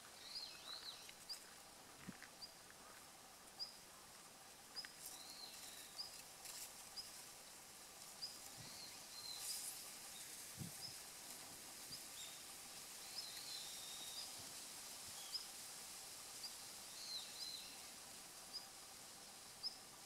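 Male long-tailed rosefinch giving its call: short, high notes repeated irregularly, about one or two a second.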